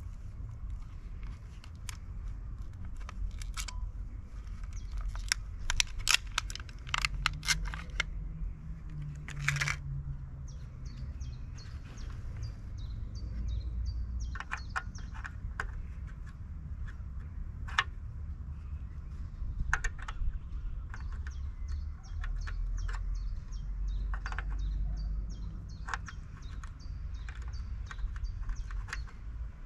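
Scattered sharp clicks and light knocks from hands working the plastic rear turn-indicator housing and bulb holder of a Vespa PX, over a steady low outdoor rumble.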